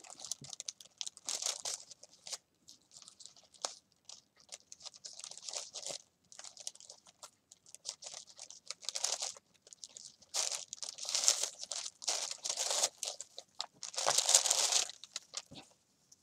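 Crinkling and rustling of a stack of small white bags as a ribbon is untied from it and the bags are handled. The sound comes in irregular bouts and is loudest about two thirds of the way through and again near the end.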